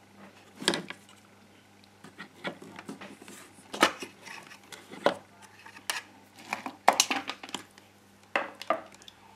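Irregular light clicks and knocks of a GHD 5.0 hair straightener's plastic casing and power cable being handled on a workbench, over a low steady hum.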